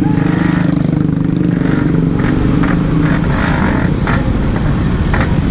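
Yamaha RX-King 135cc single-cylinder two-stroke motorcycle riding at low revs through traffic, its exhaust holding a steady note and then easing off about two seconds in.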